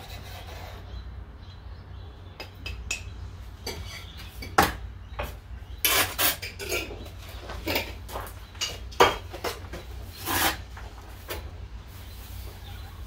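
Steel trowel scraping and scooping mortar in a plastic bucket during bricklaying, a run of irregular scrapes and clinks.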